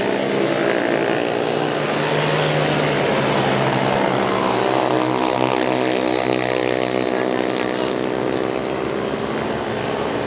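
Several racing ATV (quad bike) engines revving hard as the quads race past. Their pitch rises and falls through the gears and throttle changes.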